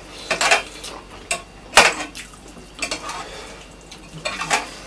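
Metal spoon clinking and scraping on a metal dinner plate in irregular sharp clinks, the loudest a little under two seconds in.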